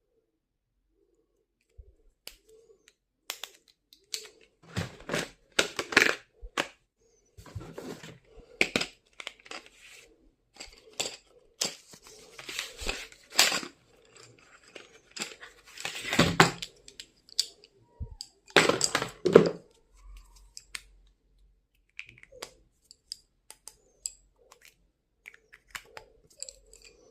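Product packaging being handled and torn open: irregular rustling and tearing in bursts, loudest in the middle, thinning to a few light clicks and taps near the end.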